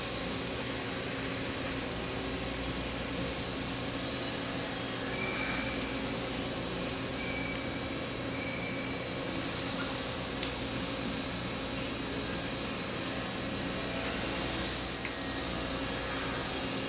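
Steady machine-shop background hum and hiss, like ventilation or machinery running, with a faint click about ten seconds in as steel vise parts are handled.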